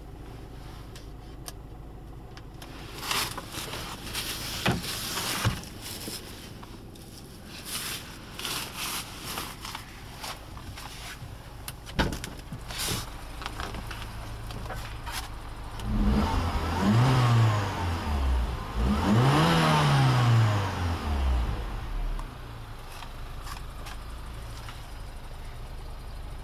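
Peugeot 207 GT's 1.6 16V turbo four-cylinder petrol engine idling, heard from inside the cabin, with a few clicks and knocks of handling in the car. About two-thirds of the way through the throttle is blipped twice, the revs rising and falling each time before settling back to idle.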